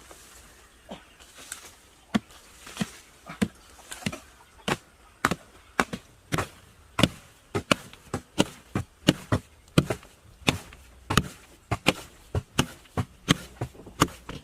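Repeated chopping strikes on wood, sharp and evenly paced at about two a second, closer together from about a third of the way in.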